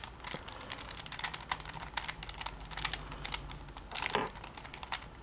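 Irregular plastic clicks and clacks of twisty-puzzle pieces being handled, several a second.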